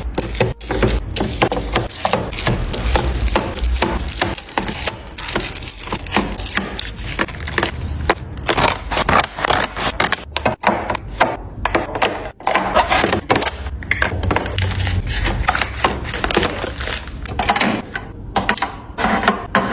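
Rapid clicking, tapping and knocking of containers, lids and food packages being handled and set down while a fridge is restocked.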